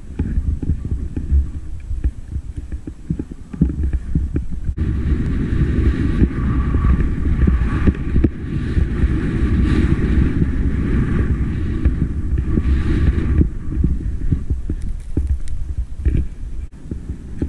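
Wind buffeting an action camera's microphone with a low, uneven rumble. From about five seconds in to about thirteen seconds, 2012 Armada JJ skis sliding over packed snow add a steady hiss.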